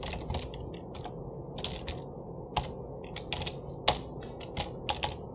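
Computer keyboard typing: an irregular run of quick keystroke clicks, a few struck harder than the rest.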